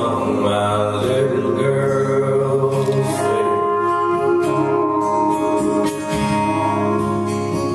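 Live music: a man singing long held notes over guitar accompaniment.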